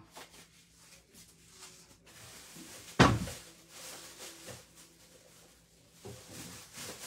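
A kitchen cupboard bangs once, sharply, about three seconds in. Before it there is quieter rustling as a disposable glove is pulled off.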